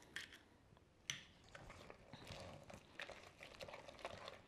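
Faint sharp tap of an egg cracked on the rim of a stainless steel mixing bowl about a second in, then quiet scraping and ticking of a wooden spoon working the creamed butter and sugar in the bowl.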